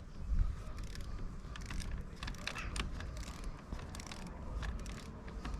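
Scattered light metallic clicks and taps of hand tools on a bicycle crank as the old square-taper crank bolt is worked loose and out.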